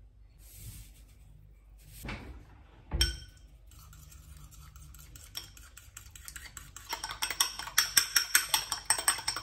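A metal fork beating eggs in a small porcelain bowl, clinking quickly against the bowl's side at about five strokes a second, loudest over the last few seconds. Before that there are only faint taps and a single knock about three seconds in.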